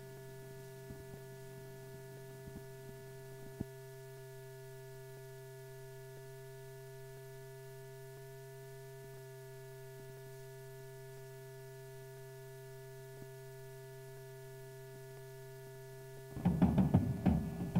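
A steady hum of several held tones with a few faint clicks. Near the end a field drum starts, loud and in quick strokes.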